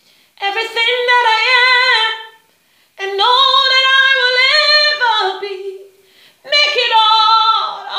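A woman singing unaccompanied: three long sung phrases with short pauses for breath between them.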